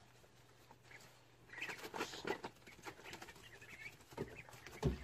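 Scuffing and rustling footsteps in loose wood shavings, busiest about two seconds in, with a few short high peeps from ducklings and a couple of dull thumps near the end.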